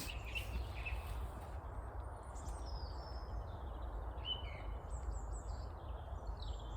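Small songbirds chirping and calling in short, high notes, many scattered calls from about a second and a half in, over a steady low background rumble.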